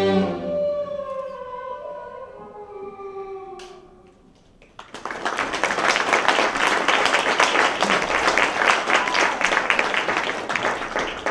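String music with held, gliding notes fades out over the first four seconds, then an audience breaks into applause about five seconds in and keeps clapping.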